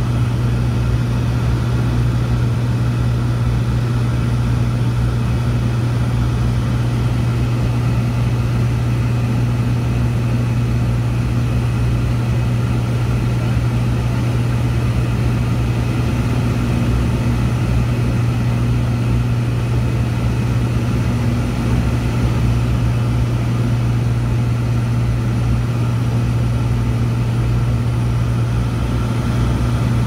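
Steady drone of an aircraft in flight heard from inside the cabin: engine hum with a strong low tone over an even rush of air noise, unchanging throughout.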